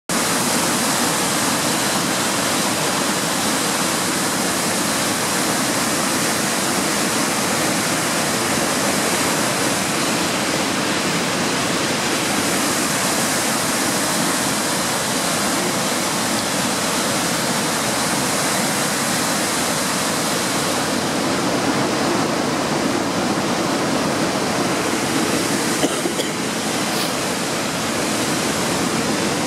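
Waterfall plunging into a rock gorge: a loud, steady rush of falling water.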